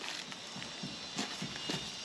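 Quiet footsteps shuffling on broken concrete and rubble.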